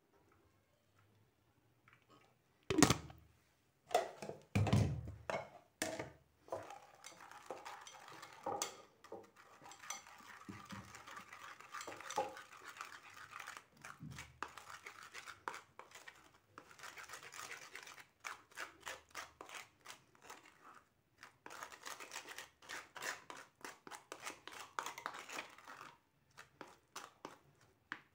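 A spatula scraping and pressing blended lemon pulp in a stainless-steel mesh sieve: a steady rasping with quick scratchy strokes that stops shortly before the end. A few loud knocks come about three to five seconds in.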